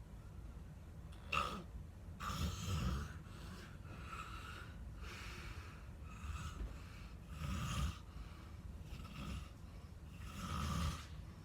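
A person snoring in sleep: three louder snores a few seconds apart, with quieter breaths between them.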